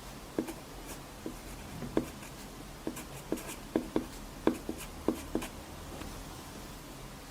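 Pencil writing on paper: a run of short, quick scratching strokes, about a dozen, that stop about five and a half seconds in.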